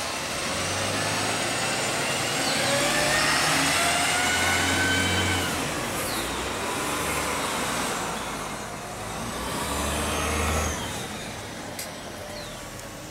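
Van Hool articulated transit bus accelerating away and passing close by. The engine hum is joined by a whine that slides upward as the bus gathers speed, loudest about three to five seconds in, with a second rise around ten seconds. It then fades as the bus moves off.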